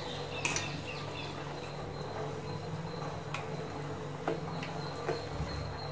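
Steel ladle stirring a milk and jaggery mixture in a stainless steel pot, knocking sharply against the pot four or so times, over a steady low hum.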